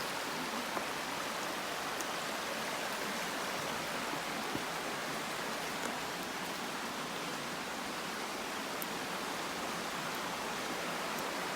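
Stream water flowing over rocks: a steady, even rush of water.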